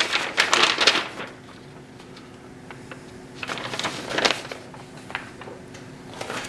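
Paper instruction sheet rustling as it is handled, in two bursts: one in the first second and another around four seconds in, over a faint steady hum.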